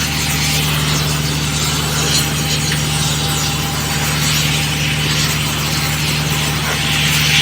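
Oxy-fuel gas torch hissing steadily as it heats the asphalt joint, over the steady low hum of an engine running.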